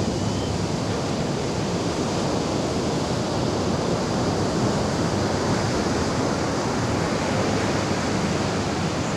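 Ocean surf breaking and washing up a sandy beach, a steady rushing noise with no distinct breaks.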